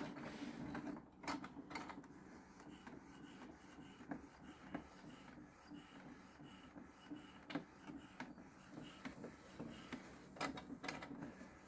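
Epson ET-8550 inkjet printer running a CD print job: a quiet steady whir from its mechanism, with a thin high whine and scattered light clicks.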